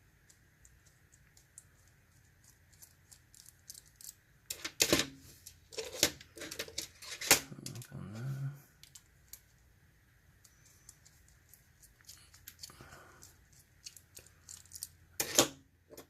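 Small metal clicks and taps as the parts of a Mul-T-Lock dimple padlock are handled and taken apart, with a run of louder knocks about five to eight seconds in and another near the end.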